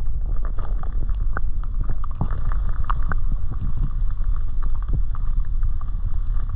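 Wind buffeting the microphone, a steady low rumble, with many small irregular clicks over it.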